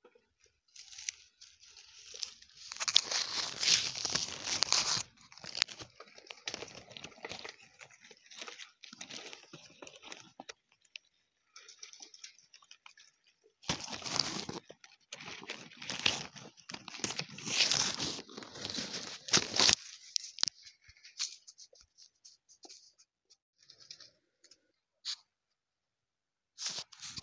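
Olive-tree leaves and twigs rustling and crackling close to the microphone as the branches are handled during olive picking. It comes in irregular bursts, loudest about three to five seconds in and again from about fourteen to twenty seconds in.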